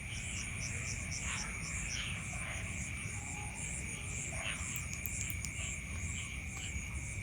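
Night insect chorus: a steady high trill with a higher chirping that pulses about twice a second. A few short falling calls stand out now and then, over low rumbling noise.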